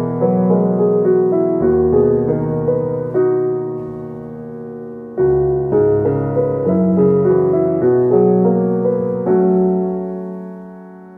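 Background piano music: a slow melody over held chords. It dies away about halfway through, a new phrase comes in about five seconds in, and it fades again near the end.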